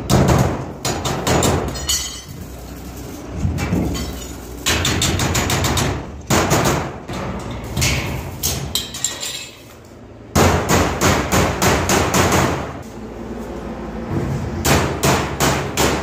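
Hammer blows on galvanized sheet-metal ductwork, hammering down a seam joint in quick runs of strikes, the thin steel ringing with each hit. Partway through, the hammering stops briefly while tin snips cut the seam strip.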